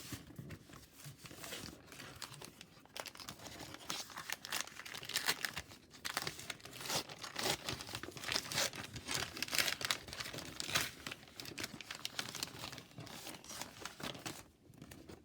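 Plastic wrapper of a hockey card pack crinkled and torn open by hand, crackling in quick, irregular bursts. It is busiest in the middle and dies away near the end.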